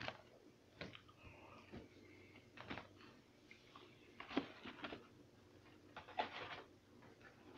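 Person chewing a stuffed Cheez-It cracker: quiet crunching that comes in a few separate spells.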